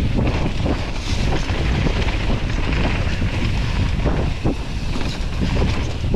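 Wind rushing over the microphone of a mountain bike descending a dirt trail at speed, with steady tyre rumble and scattered knocks and rattles from the bike over bumps.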